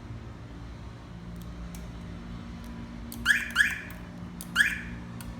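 Car alarm siren giving three short chirps, the first two close together and the third about a second later. It is set off by grounding the door-trigger wire, a sign that the negative door-trigger setting has taken. A few faint clicks come before it.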